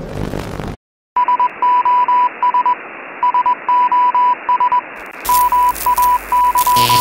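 Morse-code-like beeping over radio static in a song's intro: a single high tone keyed on and off in short and long beeps over a steady hiss. About five seconds in, a louder, wider burst of static joins. Just before this, the previous song cuts off, followed by a moment of silence.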